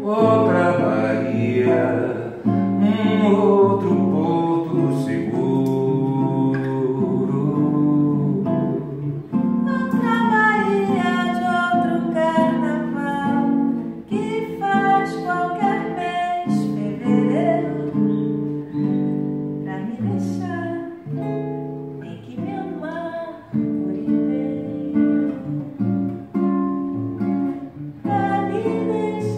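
Acoustic guitar accompanying a man and a woman singing a Brazilian MPB song together.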